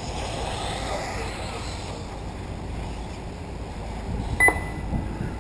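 Radio-controlled off-road race cars running around a dirt track, their motors a faint whine that rises and falls, over wind noise. About four seconds in comes a short, loud electronic beep.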